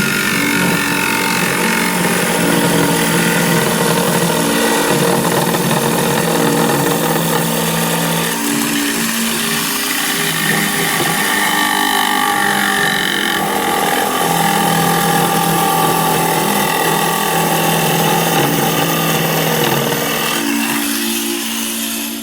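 Woodworking power tool running steadily while cutting or shaping wood, a loud hiss that stops about two seconds before the end. Sustained low tones sound underneath.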